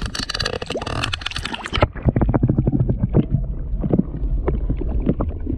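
Water splashing and sloshing as a hand lowers a peacock bass into shallow pond water. Nearly two seconds in, the sound turns suddenly muffled: a low rumble with scattered knocks, heard from under the water's surface.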